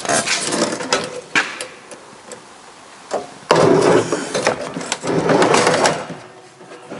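Scraping and knocking of metal against plywood as a built-in oven is slid into its wooden housing unit and trim pieces are pushed into place. Scattered knocks and clicks come first, then two longer scrapes in the second half.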